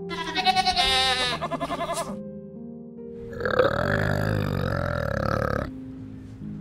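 A goat bleats once, a quavering call about two seconds long, over soft background music. About a second later comes a second, longer and rougher animal call lasting over two seconds.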